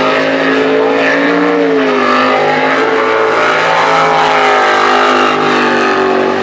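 V8 jet sprint boat engine running at high revs, its pitch rising and falling repeatedly as the driver throttles on and off through the course's tight turns.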